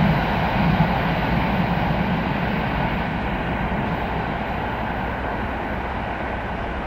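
ED4M electric multiple unit running along the track: a steady rumble with a faint whine that slowly fades as the train draws away.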